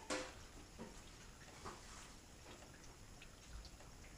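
Quiet workshop room tone with one sharp click right at the start, then a few faint short taps about a second apart: small handling noises.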